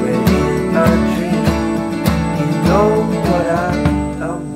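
Background song with acoustic guitar and a steady beat, with a gliding melody over it; the beat drops out near the end.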